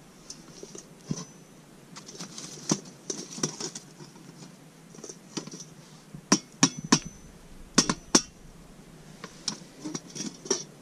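Metal lid lifter clinking and scraping on a camp oven lid as hot coals are worked off it: a scatter of sharp clinks and light rattles, the loudest cluster of clanks coming after about six seconds.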